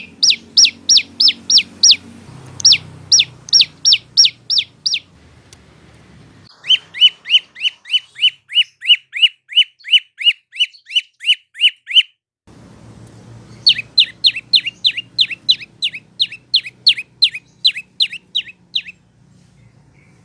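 Prenjak lumut (lancur) singing: runs of loud, sharp, downward-sweeping chip notes at about three a second. There are four runs in all, the longest about five seconds, with brief pauses between them.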